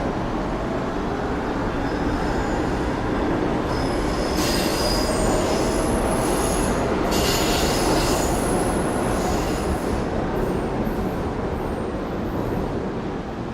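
New York City subway train running through the station with a loud, steady rumble, its steel wheels squealing on the rails in high-pitched tones that come and go, strongest through the middle.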